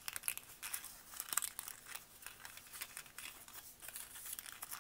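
Paper rose petals crinkling and rustling as fingers bend and pinch them together, in irregular short crackles.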